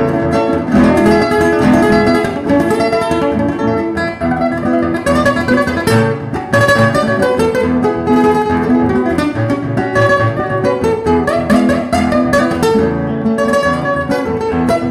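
Two acoustic guitars playing a duet, with rapid plucked melody notes over a steady accompaniment.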